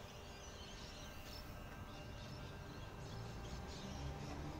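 Sydney Trains Tangara electric train pulling away from the platform. The traction motors' hum rises in pitch and grows louder from about three seconds in, over faint bird chirps.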